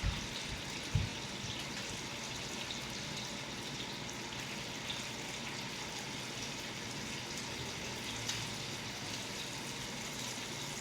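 A steady rushing noise with two soft low thumps in the first second.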